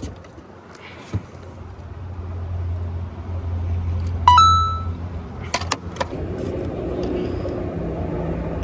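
Boat motor running with a steady low hum that grows louder after about a second. About four seconds in there is a single sharp ringing ping, followed by a few clicks.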